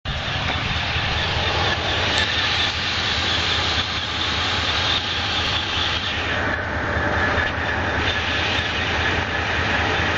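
2007 Chevrolet Monte Carlo SS's 5.3-litre V8 idling, its rapid low pulse overlaid by a loud, steady noisy clatter, the strange noise that the owner hears only in Neutral and Park and cannot place. The upper part of the noise eases slightly about two-thirds of the way through.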